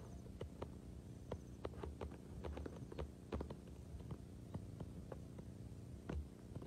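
Footsteps of someone walking on a bare dirt path: faint soft thuds about once a second, with scattered sharp little clicks between them.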